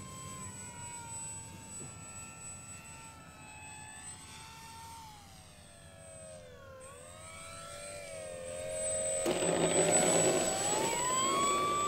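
Electric motor and propeller of an FMS PA-18 Super Cub 1700mm RC model plane running in flight, a steady whine whose pitch dips and recovers about halfway through as it passes. Near the end it gets suddenly louder and the whine rises as the motor spins up on the runway.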